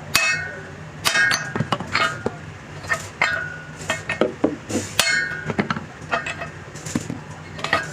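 Hammer blows on steel, each strike ringing, irregular at about two or three a second, over a steady low hum.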